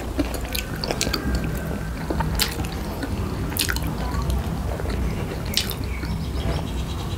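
Wet mouth sounds of chewing momo dumplings, with scattered small clicks and squishes.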